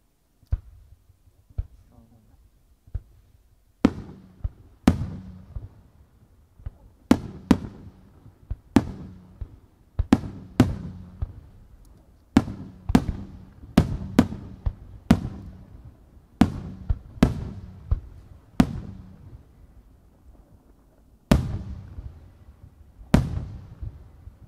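Aerial firework shells bursting overhead. A few fainter bangs come in the first three seconds, then a steady run of loud, sharp booms about one to two seconds apart, each trailing off in a low rumbling echo.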